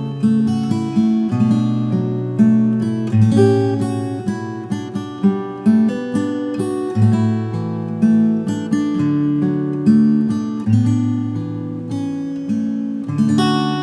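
Acoustic guitar playing a slow, relaxing instrumental piece, notes plucked and left to ring, several to the second.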